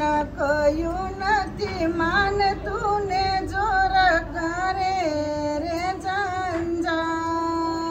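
A woman singing a slow melody solo, holding long notes and gliding between pitches.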